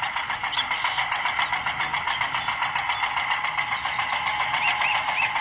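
Small electric gear motor of a homemade toy tractor and tipper trolley running with a steady whir and a fast, even ticking of about ten a second, as the tipper bed lowers.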